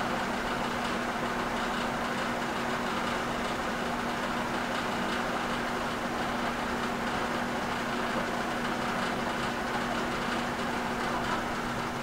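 A steady machine hum with one constant low tone, unchanging throughout.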